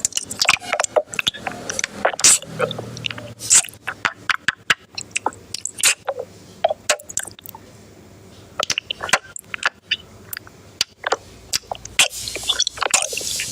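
Close-miked eating: irregular crunchy bites and chewing, a rapid run of sharp crackles and clicks with a brief lull about halfway through.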